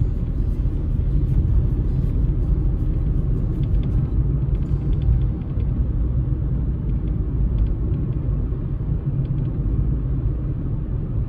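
Steady low road rumble of a car being driven on snow-covered roads.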